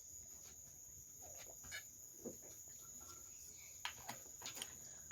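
Quiet room tone with a thin steady high-pitched whine, broken by a few faint, scattered clicks and taps.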